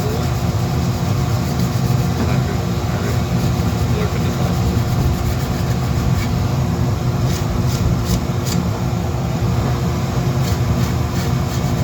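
Dremel rotary tool running steadily as it carves texture into wood, with a few short ticks around the middle and again near the end.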